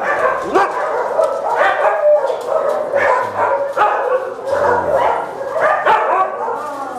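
Many shelter dogs in kennels barking and yipping at once, a continuous din of overlapping calls.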